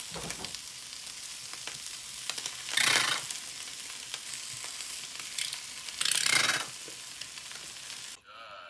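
Food sizzling in a hot frying pan as it is stir-fried, a steady hiss that swells louder twice, about 3 and 6 seconds in, as the food is stirred or tossed. Near the end it cuts off suddenly.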